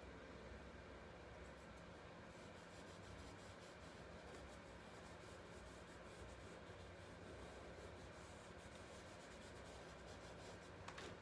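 Faint scratching of a charred wooden stick's charcoal tip drawn across paper in short strokes, starting a couple of seconds in.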